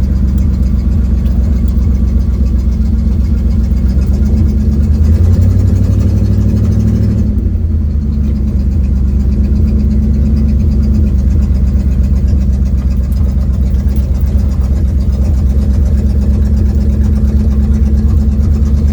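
1972 Ford Mustang's engine and leaking exhaust running, heard from inside the cabin. The engine note climbs for a few seconds, drops suddenly about seven seconds in, then holds steady.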